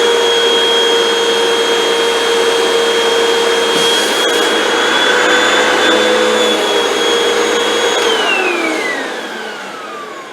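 Hoover WindTunnel 2 bagless upright vacuum cleaner running with a steady whine. About eight seconds in it is switched off, and the whine falls in pitch and fades as the motor spins down.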